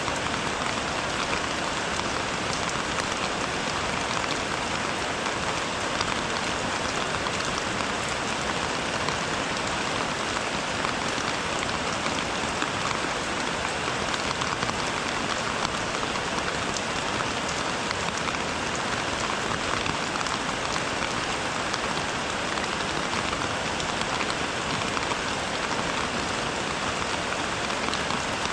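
Steady rain falling: an even hiss with scattered individual drops ticking, unchanging throughout.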